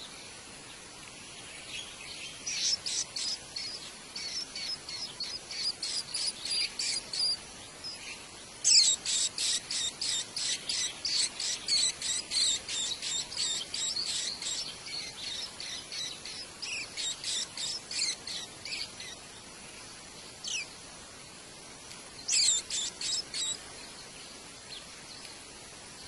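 White-eye nestlings begging with rapid, high, evenly repeated chirps, about four a second, as the adult feeds them at the nest. The calls come in runs, the longest and loudest starting about a third of the way in, then fade to a few scattered chirps and a short final run near the end.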